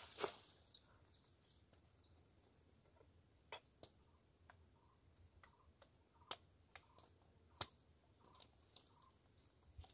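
Faint handling of a thin plastic bag: a crinkle at the start, then scattered light clicks and ticks every second or so.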